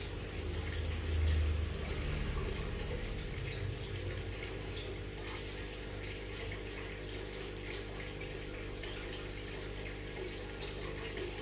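Aquarium filter and air pump running: water trickling and bubbling over a steady low motor hum, with a brief low rumble about a second in.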